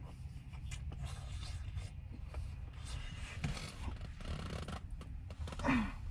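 A plastic spoon scraping and tapping against small plastic food containers, in irregular light scrapes and clicks. Near the end there is a short squeak-like sound that falls in pitch, the loudest moment.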